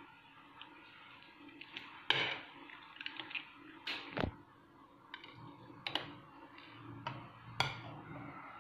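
A spatula scraping and clicking against a glass baking dish as a portion of baked mashed-potato gratin is cut and lifted out: a few scattered clicks and scrapes.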